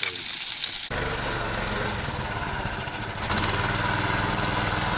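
Food sizzling in a frying pan, cut off abruptly about a second in by a snowmobile engine running steadily, which grows louder about three seconds in.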